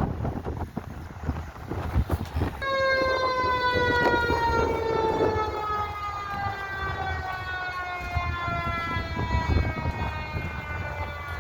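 Fire engine siren: one long wail starting suddenly a couple of seconds in, then falling slowly and steadily in pitch as it winds down, over a low rumble of traffic and engine noise.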